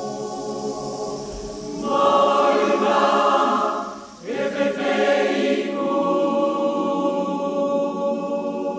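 Large mixed choir singing a Yoruba song in held chords; the singing swells louder about two seconds in, drops away briefly around four seconds, then comes back in full.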